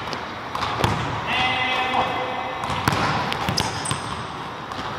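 Basketball dribbled on a hardwood gym floor, irregular bounces echoing in the large hall, with a held high-pitched squeak for about a second in the middle.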